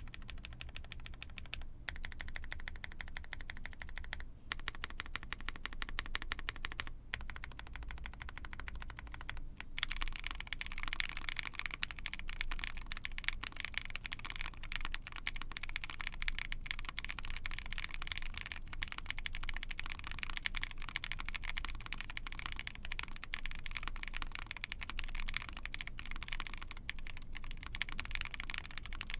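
Mechanical keyboard typed on continuously: lubed Sangria linear switches (Tecsee, long-pole POM stem, HPE housings, double-stage springs) in an ai03 Vega with a POM plate and GMK keycaps, a sound leaning to the deeper end. A few brief pauses early, then faster, fuller typing from about ten seconds in.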